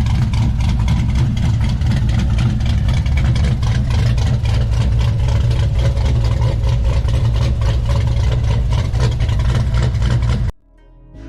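LS V8 in a swapped OBS pickup truck running steadily at idle, with a strong low, even exhaust pulse. It cuts off abruptly near the end.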